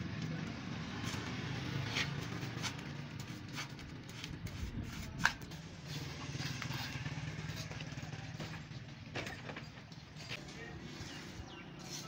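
Small steel trowel scraping and tapping wet cement mortar as it is spread over the rim of a milk-can casting furnace, with one sharper clack about five seconds in. A steady low engine-like hum runs underneath.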